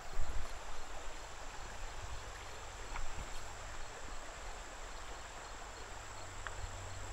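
Shallow river running over a stony riffle, with a steady high insect drone and faint regular chirps from the streamside grass. A low bump sounds just after the start.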